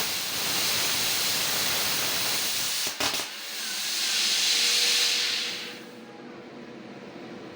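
LGK 80 air plasma cutter's torch on a CNC gantry, hissing loudly as it cuts. The hiss breaks off with a click about three seconds in, starts again, and fades out about six seconds in.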